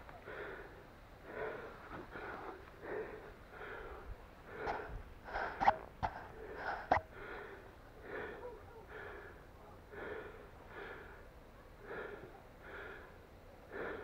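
Heavy, rhythmic panting close to the microphone, a breath about every half second. A few sharp snaps or clicks come in the middle, the loudest about five and a half seconds in.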